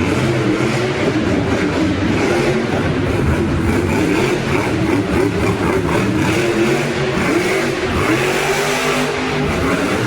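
Monster truck engine running loud in an arena, its pitch rising and falling as it revs.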